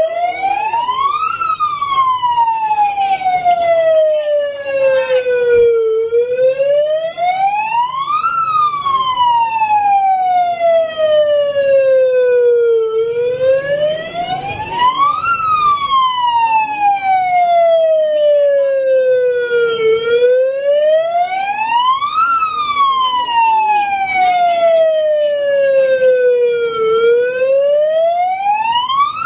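Wailing siren for an earthquake drill, its pitch rising quickly and then sliding slowly back down, five times at about seven-second intervals.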